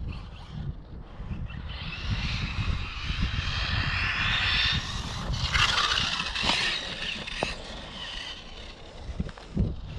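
Arrma Mojave RC desert truck's electric motor and drivetrain whining under throttle, the whine coming up about a second and a half in and giving way to a louder rushing surge near the middle, with a few short knocks toward the end. A low wind rumble on the microphone runs underneath.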